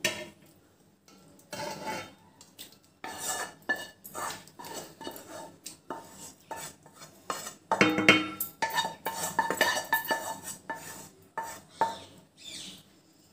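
A metal spoon scraping and clinking against a bowl and a metal cooking pot (degchi) as chicken curry is spooned out over rice and spread. The knocks come thickest in the second half.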